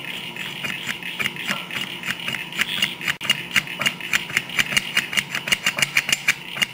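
Clutch fork clicking and rattling against a Nissan S13 throwout bearing carrier as it is worked back and forth by hand: a run of sharp clicks, about four a second at first, getting louder and quicker, five or six a second, about halfway through.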